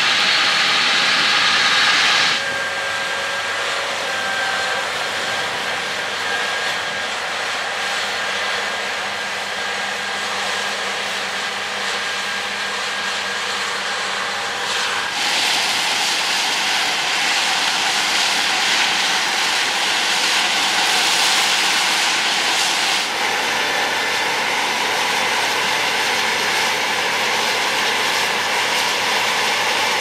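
John Deere X9 1100 combine harvester running steadily under load while harvesting wheat: a continuous machine drone and rush with a few steady whining tones. The sound changes abruptly about two seconds in, again around fifteen seconds, and again around twenty-three seconds.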